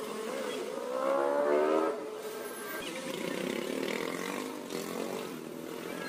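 An engine revving, its pitch climbing for about a second before it drops back to a steadier running sound.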